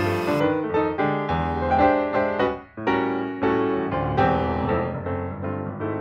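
Background piano music playing a melody over chords. A faint hiss underneath cuts off about half a second in.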